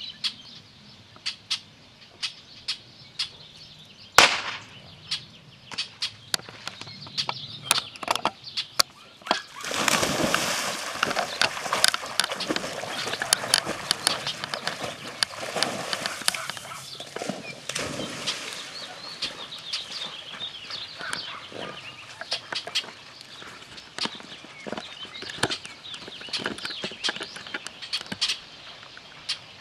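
Retriever dog running and splashing through shallow marsh water during a duck retrieve; the loud rush of splashing starts about ten seconds in and eases after several seconds as the dog reaches deeper water and swims. Short sharp clicks and chirps are scattered throughout, with one loud crack about four seconds in.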